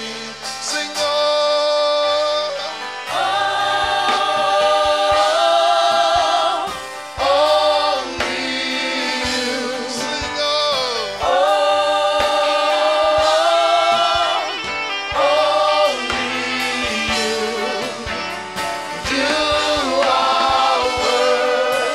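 Gospel worship song sung by a group of voices with instrumental accompaniment, the singers holding long notes with vibrato.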